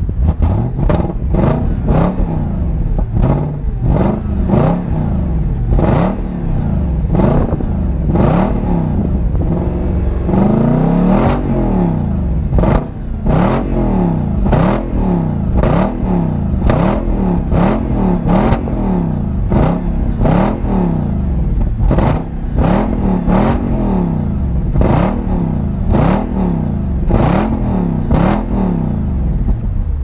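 Audi allroad 4.2 V8's exhaust heard through the stock rear mufflers with the cut-off valves closed, the stationary engine revved in quick repeated throttle blips, its pitch rising and falling about once a second.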